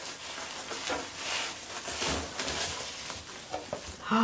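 Plastic bubble wrap rustling and crinkling as hands pull it off a wrapped item, with a few light clicks near the end.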